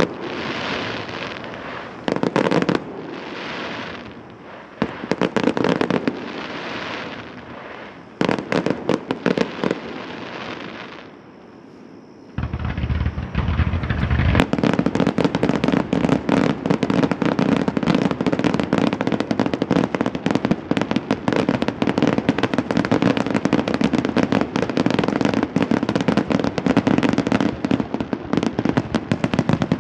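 Fireworks grand-finale barrage: aerial shells bursting in separate crackling volleys for the first ten seconds or so. After a brief lull, about twelve seconds in, comes a dense, continuous run of bangs with deep booms.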